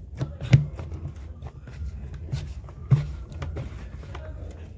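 Chapati dough being kneaded by hand: irregular soft thumps and knocks as the dough is pressed and slapped down, the loudest about half a second in and near three seconds, while it is worked until soft.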